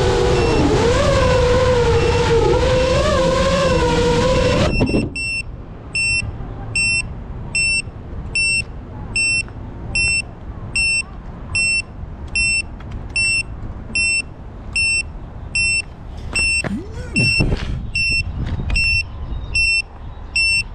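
FPV quadcopter's motors whining, the pitch wavering as the throttle changes, then cutting off suddenly about five seconds in as the drone comes down and is disarmed. Its lost-model buzzer then beeps steadily, about three beeps every two seconds, with some handling noise near the end as the drone is picked up.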